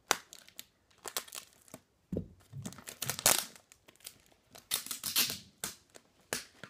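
Packaging crinkling and tearing by hand in irregular bursts, as a wrapped gift is pulled open, with a dull thump about two seconds in.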